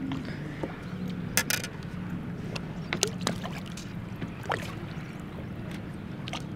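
Steady low rumble of water and wind around a small fishing boat, with a few sharp clicks and knocks from handling at the gunwale and light water sloshing as a largemouth bass is held in the water and let go.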